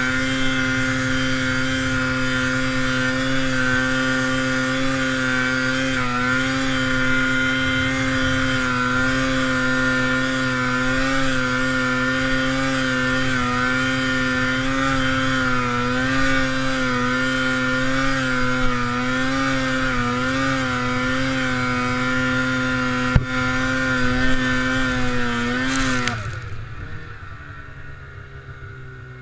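Snowmobile engine held at steady high revs with a slight waver in pitch as it spins in circles, with one sharp click a few seconds before the end. Near the end the throttle comes off and the revs fall away quickly to a low idle.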